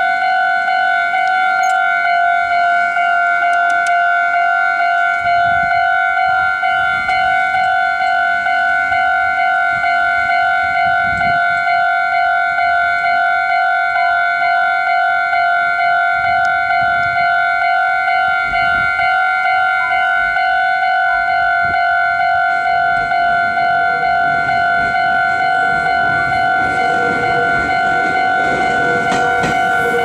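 Japanese level-crossing alarm ringing continuously: a steady-pitched electronic ding repeating at an even pace while the warning lights flash and the barrier is down. Near the end the rumble of an approaching Meitetsu 3100-series electric train grows underneath the alarm.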